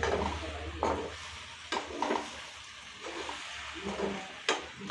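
Steel spatula stirring pasta in a steel kadhai on a gas stove: several sharp metal scrapes and clinks against the pan over a light sizzle of frying.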